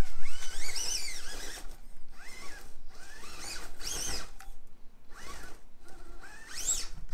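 Furitek Micro Komodo brushless motor in a Traxxas TRX4M mini crawler whining in several short bursts of throttle, its pitch rising and falling with each burst as the truck climbs rock.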